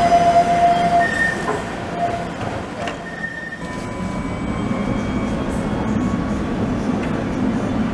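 Alstom Citadis tram: a steady high electric whine from the tram moving along the platform stops about a second in. A steady low rumble and hum from inside the car then slowly grows louder toward the end.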